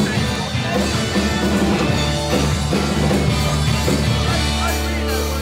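A band playing rock music, with guitar over a steady bass line.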